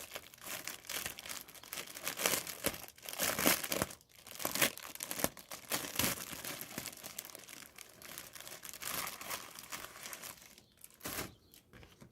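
Crinkling and rustling in irregular bursts as packaging and flat cardstock favor-box pieces are handled.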